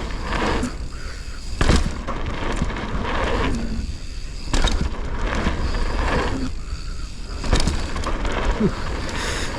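Mountain bike riding down a dirt jump trail: wind buffeting the microphone and tyres rumbling over dirt, with three hard landing thuds about three seconds apart as the bike touches down off jumps, landed a little short.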